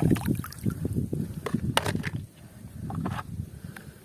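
A toy cement mixer truck being handled and scrubbed during cleaning: irregular knocks and rubbing, with a couple of sharp clicks between one and two seconds in.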